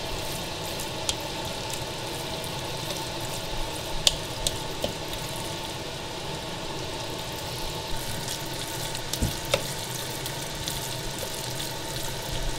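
Wooden spoon stirring and mashing soft cauliflower mash in a bowl to work the seasoning through, with a few sharp knocks of the spoon against the bowl, over a steady hiss.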